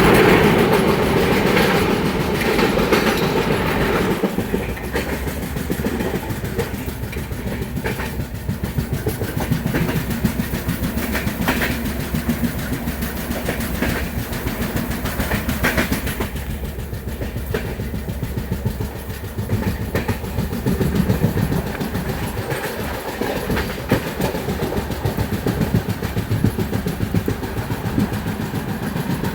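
Train running along the track: a steady rumble of wheels on rails with clacks over the rail joints, louder for the first few seconds.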